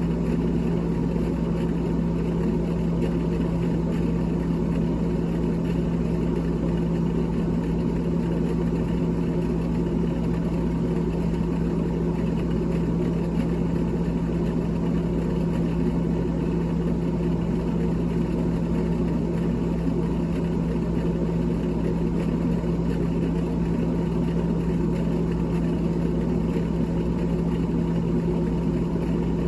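Steady electric motor hum with a strong constant low tone, unchanging throughout.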